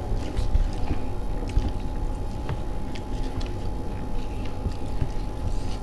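A person chewing and eating rice with gravy close to the microphone, with small scattered mouth and hand clicks over a steady low rumble.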